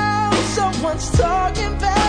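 Pop music playing: a held melody line over bass, with a drum thump about a second in.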